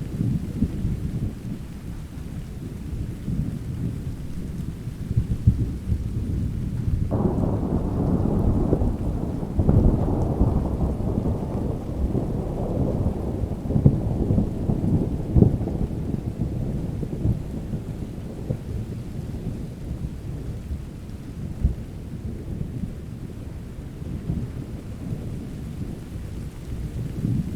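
Thunderstorm: steady rain under continual low rumbling thunder. About seven seconds in a louder thunderclap breaks, swells again a few seconds later, then rolls and fades over the next ten seconds or so.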